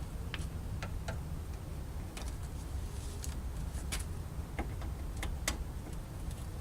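Irregular small plastic clicks as the push-pin clips holding a Honda Civic's front bumper cover are unscrewed and popped out, over a steady low rumble.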